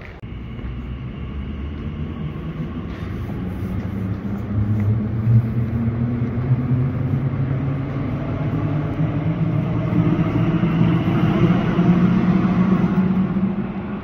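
Elizabeth line train running in the station behind the platform screen doors: a low rumble with a motor hum that grows louder over about twelve seconds, then eases off near the end.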